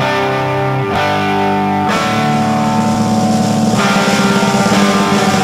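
Rock music with distorted electric guitar: held chords changing about once a second, then a faster, driving rhythm from about two seconds in.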